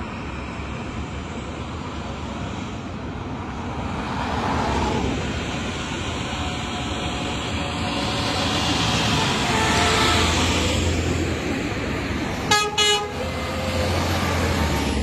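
Convoy of utility bucket trucks driving past one after another, the engine and tyre noise swelling and fading as each goes by. About twelve and a half seconds in, a horn gives two quick toots.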